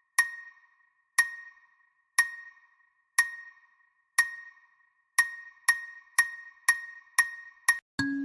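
Nokia 206 phone ringtone: a single bell-like ping repeating once a second, then twice a second from about five seconds in. A different tone sequence starts right at the end.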